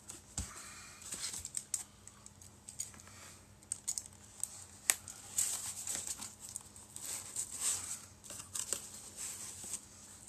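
Cardboard boxes being handled and opened: irregular scraping, rustling and sharp clicks of cardboard flaps and lids, with some tearing of packing tape.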